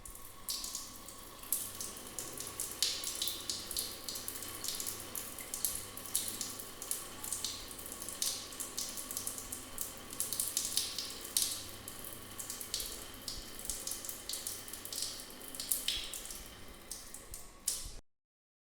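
Water running from a tap and splashing, a steady hiss broken by irregular splashes. It stops abruptly near the end.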